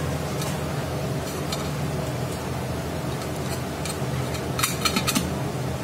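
Metal tools clinking: a chain wrench and adjustable wrench being worked on the air-oil separator cartridge of a screw air compressor, with a few faint clicks and a quick rattle of clinks about four and a half seconds in. A steady low machine hum sits underneath.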